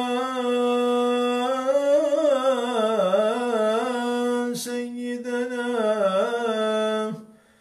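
A man's solo voice chanting the salâ, the Arabic blessing on the Prophet, as it is sung from Turkish mosques. He holds the 'yā' of 'ʿalayka yā' as one long steady note, then draws it out into a wavering melismatic run with a short break about halfway. The voice cuts off for a breath near the end.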